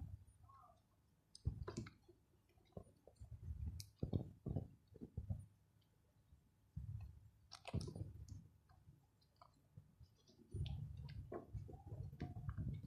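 Small parts and tools being handled during a bench repair: irregular light clicks and knocks in clusters, with handling rustle in between.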